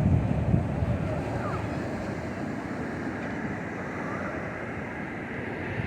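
Ocean surf washing steadily on the beach, with strong wind buffeting the microphone in low rumbling gusts that are loudest at the start and ease after about a second.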